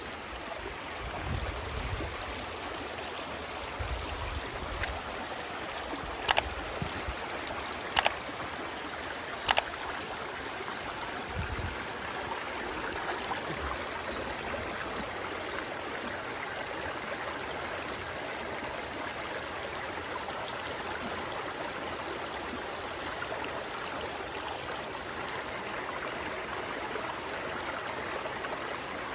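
Stream water flowing steadily. Three sharp clicks, each about a second and a half apart, stand out as the loudest sounds partway through, with a few soft low thumps before and after them.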